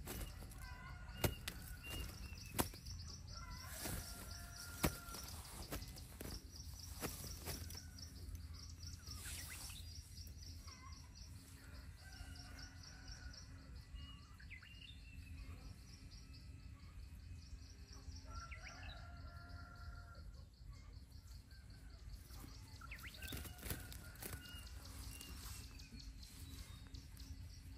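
A white-throated kingfisher caught in a net trap, flapping its wings against the netting: a quick run of sharp flutters and knocks in the first five seconds. Small birds chirp throughout.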